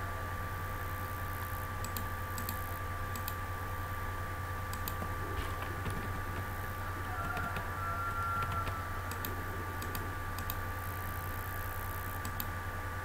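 Scattered computer mouse and keyboard clicks, a dozen or so spread irregularly, over a steady low hum and hiss.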